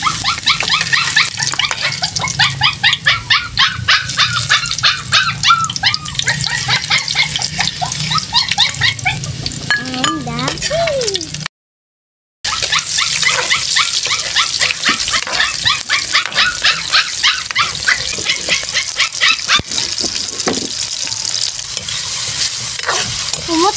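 Chopped garlic sizzling and crackling in hot oil in a wok, a dense patter of small pops over a steady hiss. It breaks off for about a second near the middle.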